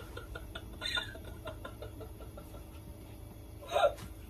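A woman's short, breathy laughs, about a second in and again near the end, with faint clicks and rustles of boiled cabbage leaves being handled.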